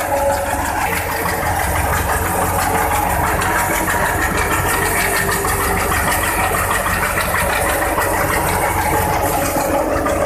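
Tractor-driven wheat thresher running steadily under load, threshing wheat with the tractor's engine running beneath it: a continuous dense machine din with no letup.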